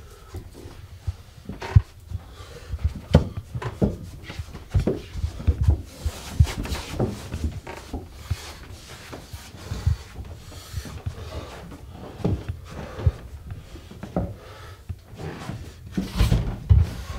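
Footsteps and knocks of someone moving through a house: irregular low thumps, with wooden knocks and some rubbing.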